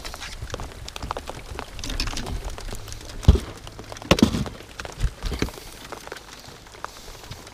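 Gear being handled in a boat: scattered knocks and clatter as a carpeted storage hatch is opened and reached into. The loudest is a dull thump a little over three seconds in, and several smaller knocks follow.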